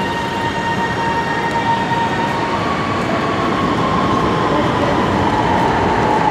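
Orange Line electric metro train running at the station platform: a steady rushing noise with a thin motor whine that drifts slowly down in pitch through the second half.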